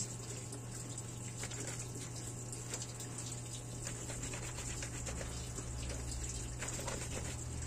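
A soapy wet cloth being scrubbed and wrung by hand in a laundry sink, with water splashing and irregular small wet slaps, over a steady low hum.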